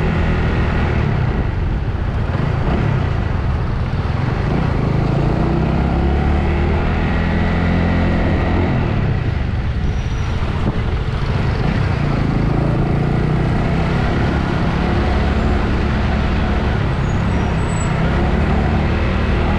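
Road traffic heard from a moving motorbike: a steady, loud rumble of engines and road noise as it passes trucks, a bus and cars held up in a traffic jam.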